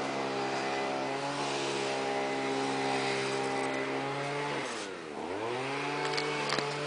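An engine running steadily at a constant pitch. About five seconds in, its pitch dips briefly and then comes back up.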